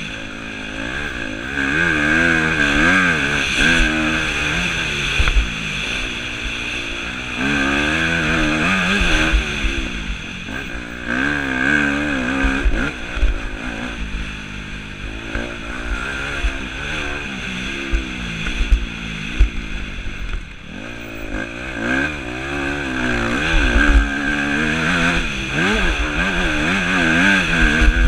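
Yamaha YZ250F four-stroke single-cylinder motocross engine under hard riding, its revs rising and falling over and over as the throttle is opened and closed and gears are shifted, with a dip around two-thirds of the way through. Wind rumbles on the microphone underneath.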